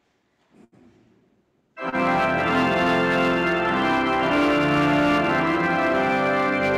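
Near silence with a faint knock, then a church pipe organ comes in suddenly about two seconds in, playing full sustained chords.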